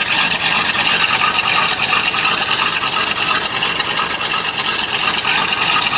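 Carbureted dump truck engine idling steadily just after a cold start. The electric choke is still closed, giving a slightly uneven, lopey idle that at first sounded like a cam.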